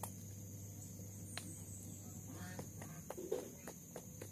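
Burmese rooster pecking at food: faint, sharp taps at irregular intervals.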